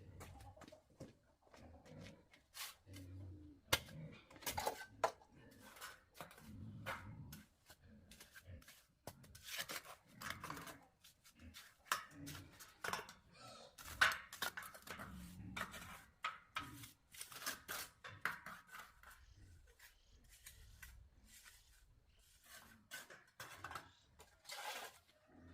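Scattered clicks, knocks and rubbing of objects being handled, with a few sharper knocks among them.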